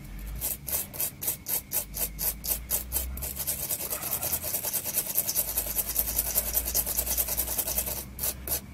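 Small wire brush scrubbing carbonised, scorched residue off a power-supply circuit board in quick back-and-forth strokes, about four to five a second, running together into continuous scrubbing in the middle before separating again near the end.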